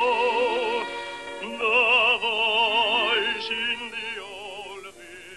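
Operatic-style singing with wide vibrato from an old 78 rpm record, played back after computer restoration with the hiss and scratches removed. Long held notes give way near the end to a faint fading chord.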